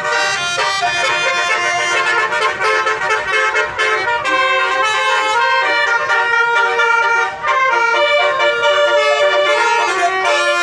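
Bus telolet musical horn: a set of horns on a bus playing a melody of stepped notes, several tones sounding together, without a break.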